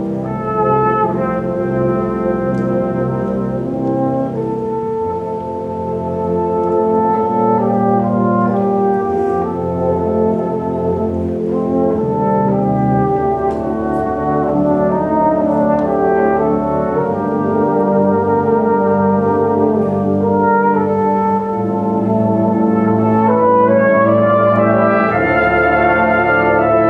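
Flugelhorn solo over a full brass band, slow sustained melody with held chords beneath, the band growing louder over the last few seconds.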